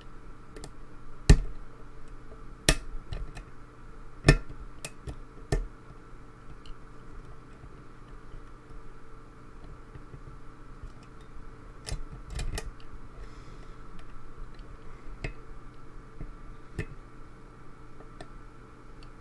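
Lock picking: a metal pick and tension bar working the pins inside a lock, giving scattered sharp metallic clicks and ticks. The loudest clicks come in the first six seconds and in a cluster about twelve seconds in, with lighter ticks in between.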